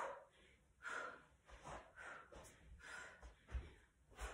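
A woman panting hard, with quick gasping breaths, while exerting herself through bodyweight kick-throughs and squat jumps. A few dull thuds of bare feet landing come in the second half.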